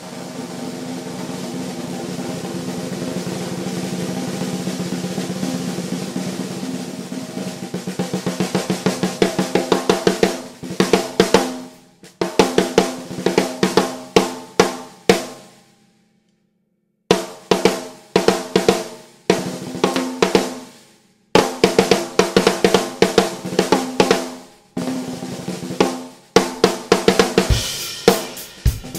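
Mapex Black Panther 14 x 5.5 metal-shell snare drum at medium tuning, played with sticks. A long roll opens from a dense buzz into separate strokes, then gives way to groups of single strokes and short rolls, each hit ringing with a pitched tone. There is a silent pause of about a second near the middle.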